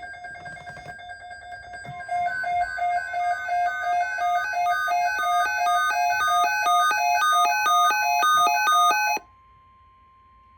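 Electronic weather alert tones: loud pitched beeps stepping between several notes about three times a second, which stop abruptly about nine seconds in and are followed by a faint steady tone. They signal a National Weather Service alert.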